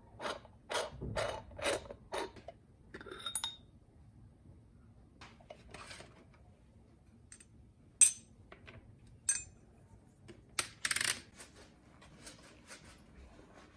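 Light metallic clicks and clinks of an aluminium Bialetti Moka Express stovetop espresso maker being handled and taken apart, its parts knocking against each other and a stainless steel sink. A quick run of clicks comes in the first couple of seconds, then a few separate knocks later on.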